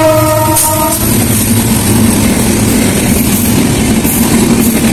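A train's horn sounding and cutting off about a second in, then the loud, steady rumble of the train running past.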